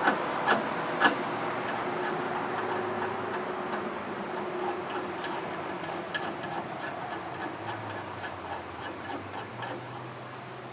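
Sharp metallic clicks, about two a second, then a run of fainter, quicker clicks that slowly die away, from hand work on the bandsaw mill's blade-tensioning hardware.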